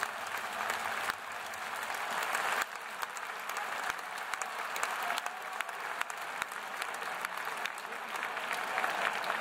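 Football stadium crowd applauding after the final whistle, a dense wash of clapping with sharp individual claps standing out close by.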